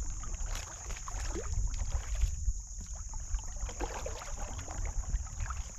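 Kayak paddling on calm river water: the paddles dip and splash and water drips, with small knocks on the hull. A low rumble swells about two seconds in, and a steady high hiss sits over everything.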